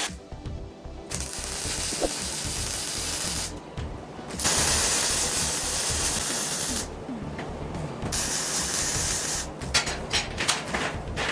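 Welding arc crackling and hissing in three runs of a few seconds each, broken by short pauses, then a string of short crackling bursts near the end.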